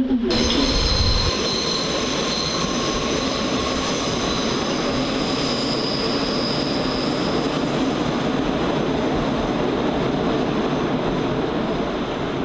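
Hamburg S-Bahn BR 472/473 electric multiple unit running through the station, a steady rumble of wheels on rails with thin, steady high-pitched squealing tones above it.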